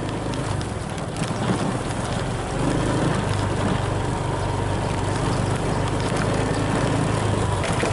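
A small engine running steadily, a low hum that grows a little louder about two and a half seconds in, with a few light clicks.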